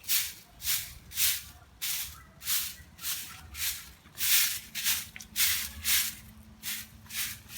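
Broom sweeping the ground outdoors in steady, even strokes, a little under two a second.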